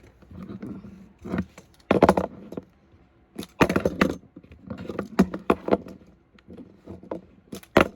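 Toy monster trucks clattering as they are flipped and land, in several bursts of sharp knocks and rattles with short gaps between.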